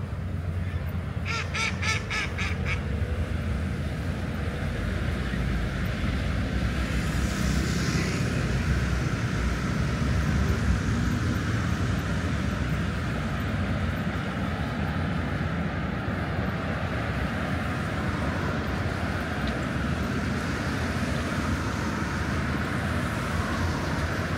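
Steady low rumble of city traffic, with a brief run of rapid, high pulsing notes about a second in.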